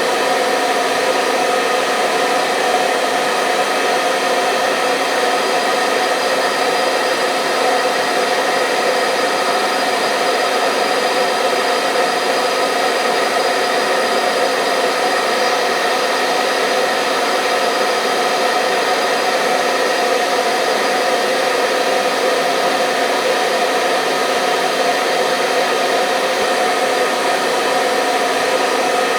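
Electric hair dryer running continuously at a steady speed: an even rush of blown air with a steady motor whine over it.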